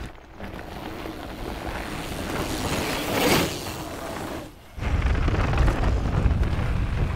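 Mountain bikes running fast down a dirt trail: tyre noise on loose dirt and rushing air, swelling to a brief whoosh about three seconds in. After a short dip just before the five-second mark, a louder, low rumble of wind buffeting a chase camera over the tyre noise.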